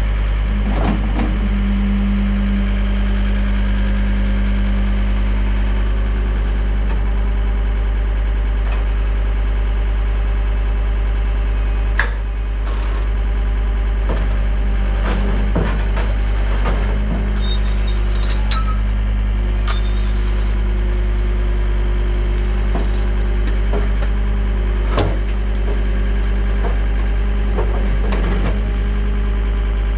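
John Deere 326D skid steer's diesel engine running at a steady idle, with scattered short clunks and clicks, the sharpest about twelve seconds in and again near twenty-five seconds.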